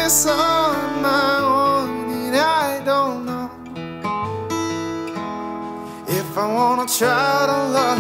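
Background music led by acoustic guitar, with a melody line that slides and wavers in pitch.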